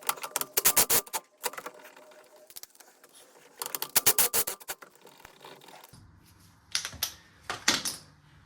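Impact gun hammering in three short bursts, rattling rapidly as it undoes the E12 Torx bolts holding a driveshaft to the differential flange.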